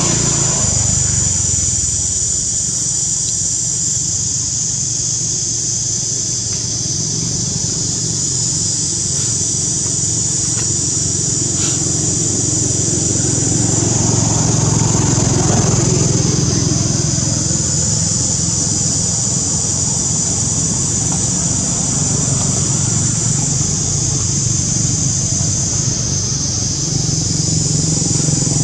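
Steady engine drone of motor-vehicle traffic, swelling about halfway through as a vehicle passes closer. A constant high-pitched buzz runs over it throughout.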